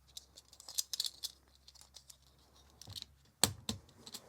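Small plastic clicks and light scraping as stabilizer brackets, spacers and keycaps are handled and pushed onto a mechanical keyboard, with a cluster of clicks about a second in and two sharper snaps near the end.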